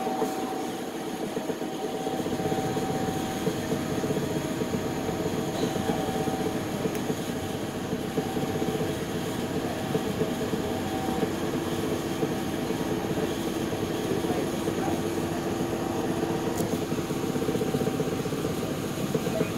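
Interior of a streetcar running: a steady rumble of wheels on rail with a faint hum of the motors, whose pitch shifts partway through.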